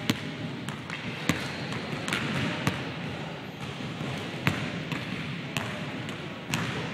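Basketballs bouncing on a hardwood gym floor: sharp, irregular thuds about every second, echoing in the large hall.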